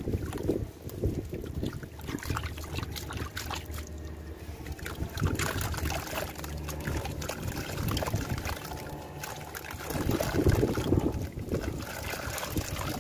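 A lump of dried clay being crumbled by hand into a bucket of muddy water: gritty crunching and crackling as pieces break off, with grit and water trickling and splashing into the water. The crackling gets denser about halfway through.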